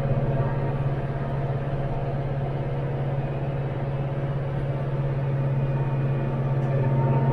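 Branson 5520 tractor's diesel engine running steadily at working speed while pulling a rotary cutter through ditch grass. It is a constant low drone that gets slightly louder near the end.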